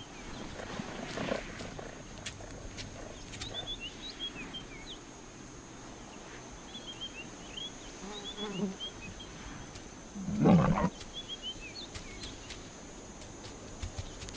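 Big cat growling twice with a low, rough growl: a weaker one about eight and a half seconds in and a louder, half-second one about ten and a half seconds in. Faint clusters of short high bird chirps come and go throughout.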